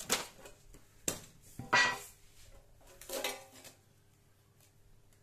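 Clicks, knocks and scrapes from a metal Pokémon tin cube being worked open. There is a sharp click at the start, another about a second in, a longer scraping knock just before two seconds, and a softer rattle about three seconds in.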